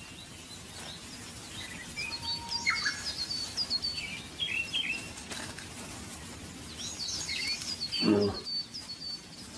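Small birds chirping in quick runs of short high notes, with a few lower calls in between. About eight seconds in there is a brief low-pitched sound, louder than the birds.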